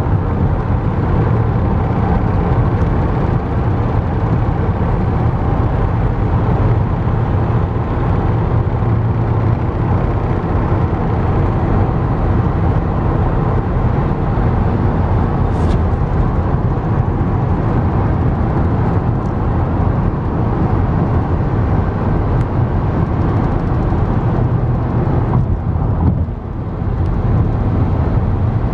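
Steady road and engine noise inside a car's cabin at freeway speed: a low rumble of tyres and engine that dips briefly near the end.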